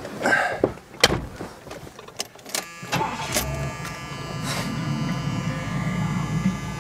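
A 1977 Lincoln Continental's V8 starting easily and settling into a steady idle about three seconds in, after a few knocks and clicks as the driver gets settled in the seat.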